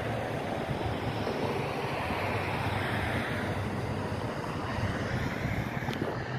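Mercedes GLE 450 SUV driving slowly past, its engine and tyres heard as a steady low rumble, mixed with wind buffeting the microphone.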